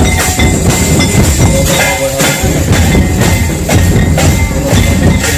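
Several rope-laced barrel drums beaten with sticks in a fast, steady rhythm, with metallic jingling running over the beat.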